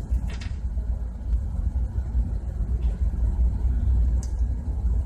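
Steady low rumble of shipboard machinery running, with a few faint clicks from the lubricator being dismantled by hand.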